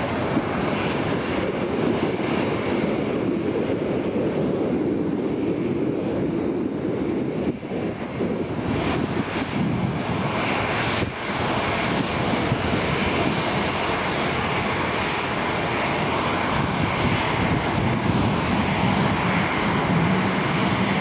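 A Boeing 737-800's twin CFM56-7B turbofan engines in flight as the airliner flies away in a banking turn: a steady jet roar, with a higher whine coming in about halfway through.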